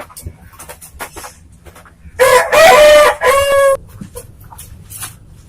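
A rooster crowing once, about two seconds in: one loud call of about a second and a half with a brief break in the middle. Faint scattered clicks and rustles come before and after it.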